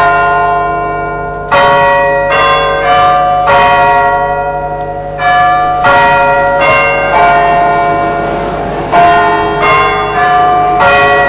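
Recorded bells ringing in a peal: struck one after another about every half second to a second, each stroke ringing on under the next.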